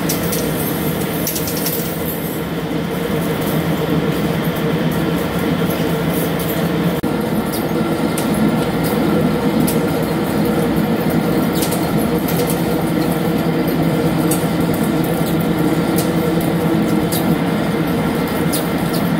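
CNC vertical lathe cutting a large SS400 carbon-steel ring: a steady, loud machine hum and cutting noise, with scattered sharp ticks of steel chips striking the machine.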